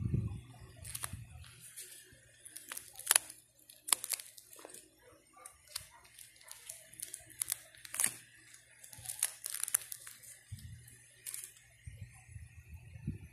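Clear plastic pages of a coin album crinkling and crackling as they are handled and turned, an irregular run of sharp crackles, with dull handling bumps at the start and near the end.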